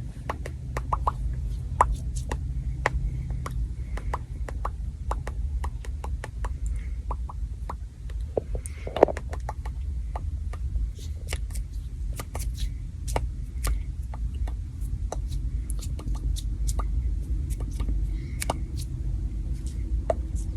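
Close-miked ASMR pop sounds: soft pops and clicks repeated irregularly, a couple a second, with one louder pop about nine seconds in, over a steady low hum.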